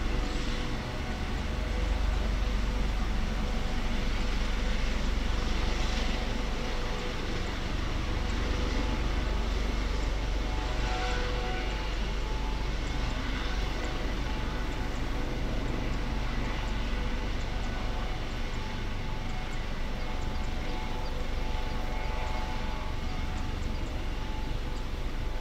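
Airbus Helicopters AS365 Dauphin running on the ground with its main rotor turning as it taxis: a steady low rotor hum under a steady turbine whine.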